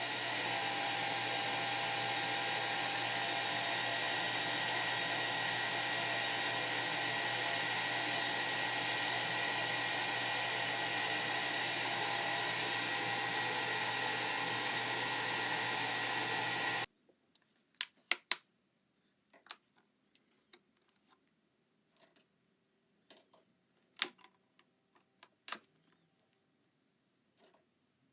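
A small electric motor and fan running steadily with a whirring whine, switched off suddenly about seventeen seconds in, then scattered light taps and clicks.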